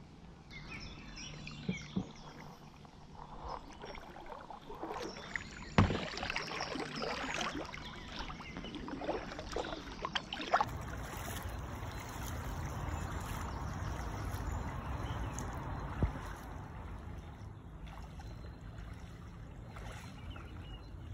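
Kayak paddling on a calm river: paddle blades splashing and dripping, with a few sharp knocks of the paddle against the hull. In the second half a low rumble runs under the steadier water sound.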